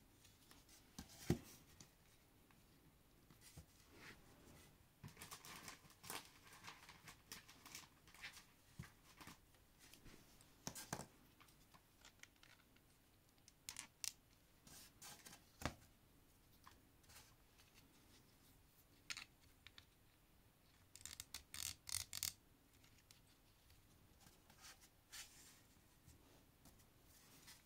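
Faint clicks and scrapes of a Transformers Legacy Skullgrin action figure's plastic parts being turned and snapped into place by hand during its transformation, with a sharper click about a second in and a quick run of clicks later on.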